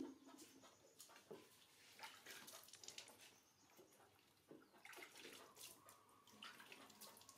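Faint splashing and dripping of water from a wet baby monkey being lifted and washed by hand over a plastic bath basin, in small irregular bursts.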